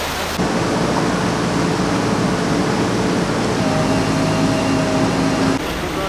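Steady rushing of water together with the hum of a running engine; the engine note shifts pitch about three and a half seconds in, and the sound cuts off abruptly shortly before the end.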